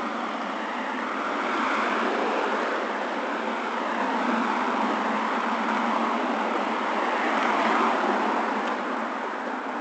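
Road traffic on a nearby street: a steady rush of car tyre and engine noise that swells and eases as cars pass, loudest near the end.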